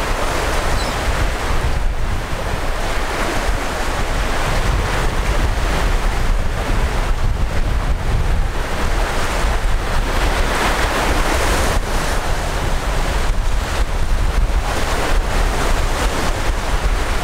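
Wind buffeting the microphone over a steady wash of ocean surf, a loud, even rushing noise with a heavy low rumble.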